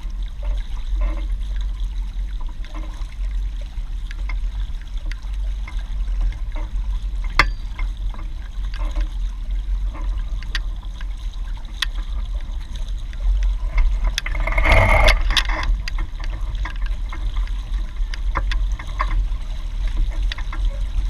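Lake water sloshing and splashing along a Hobie 16 catamaran hull under sail, over a steady low rumble. There are scattered sharp ticks, a single knock about seven seconds in, and a louder splash about fifteen seconds in.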